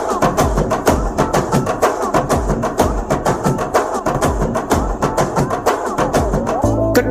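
Loud, percussion-driven dance music with a fast, even drum beat. Near the end a steady deep bass line comes in as the track changes.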